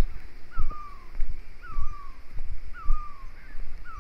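Narrow-gauge train running slowly, with low knocks and rumble. Over it a high squealing note falls in pitch and repeats very evenly, about once a second.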